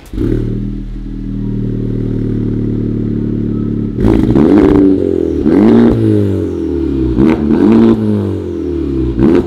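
Honda Civic Type R's turbocharged four-cylinder engine through an AWE triple-tip cat-back exhaust. It idles steadily, then from about four seconds in it is blipped in a series of quick revs that rise and fall.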